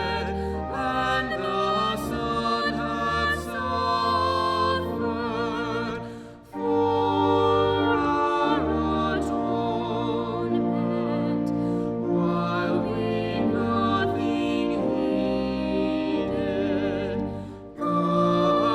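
Sacred vocal music: a singing voice with strong vibrato on long held notes over sustained accompaniment, with two brief pauses between phrases.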